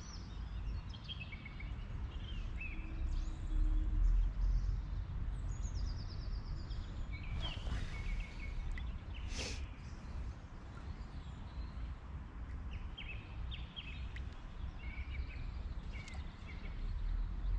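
Small birds chirping here and there over a steady low outdoor rumble. One brief sharp click about halfway through.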